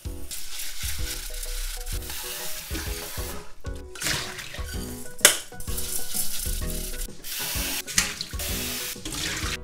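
Kitchen tap water running into a stainless saucepan of rice, then the cloudy rinse water and rice being poured through a mesh strainer into a steel sink, with a sharp knock about five seconds in. Soft background music plays underneath.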